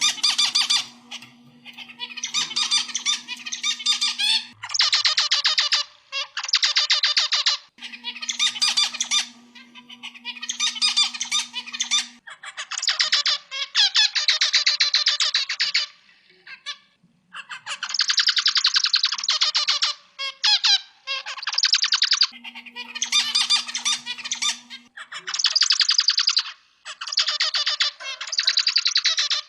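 Zebra finch singing: repeated bouts of rapid, buzzy, nasal syllables, each bout one to two seconds long, with short pauses between them.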